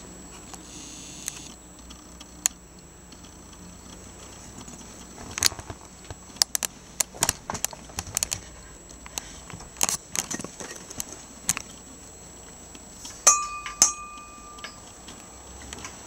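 Scattered light metallic clicks and taps from handling around a metal typewriter cart. About 13 s in, one tap leaves a brief clear metallic ring.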